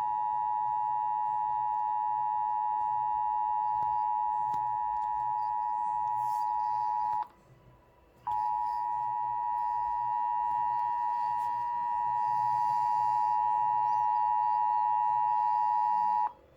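Emergency Alert System two-tone attention signal: two steady tones sounding together (853 and 960 Hz), announcing an incoming tornado warning. It breaks off for about a second roughly halfway, then sounds again for about eight seconds and stops shortly before the end.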